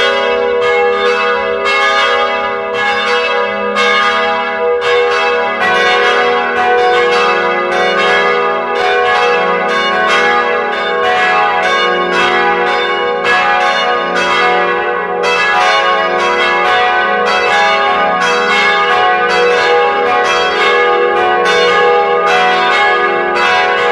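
Church bells ringing a continuous peal, strokes following one another in quick succession with each bell ringing on under the next.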